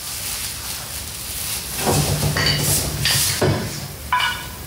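Motorcycle wheel rims being handled and set down on a workbench: a few separate knocks and clatter, the loudest about three seconds in.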